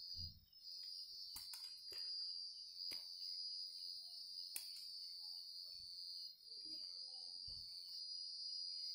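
Faint, steady, high-pitched insect trilling, broken briefly near the start, with a few light clicks and low bumps from scissors handling wire.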